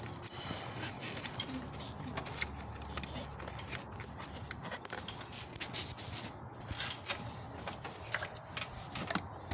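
Scattered clicks, knocks and plastic rattles of hands tugging at a stuck ignition coil in a car's engine bay.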